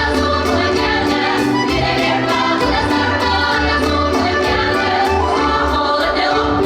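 Music for a Karelian folk dance: a group of voices singing over a steady quick beat and a pulsing bass.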